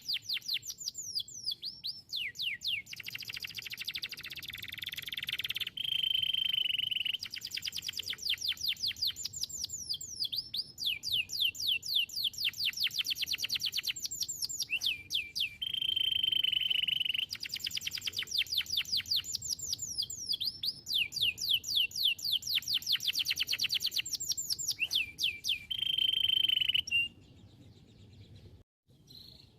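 Domestic canary singing: long runs of fast, repeated falling notes alternating with steady held rolls, the song breaking off shortly before the end.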